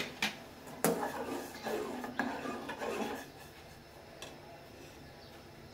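Metal spoon stirring milk tea in an aluminium pot, clinking and scraping against the pot several times in the first three seconds, with one more light clink about four seconds in.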